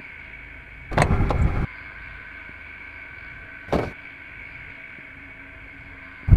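Car doors being worked on a stopped car: a rattling clatter lasting under a second about a second in, a short knock near four seconds, and a sharp, loud knock at the end as a door is opened.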